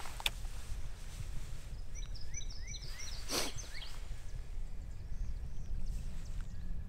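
Outdoor river ambience: a steady low rumble of wind on the microphone, a short run of bird chirps about two seconds in, and a brief whoosh about three and a half seconds in.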